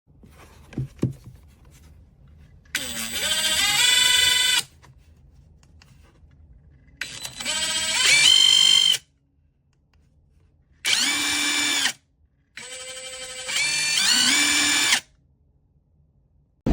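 Prostormer 17V brushless cordless impact driver running in four short bursts, its motor whine climbing in pitch in steps as the trigger is squeezed and then holding steady, after a couple of light clicks about a second in.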